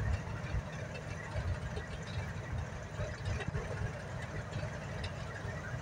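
Diesel locomotive engine idling, a steady low rumble that rises and falls unevenly.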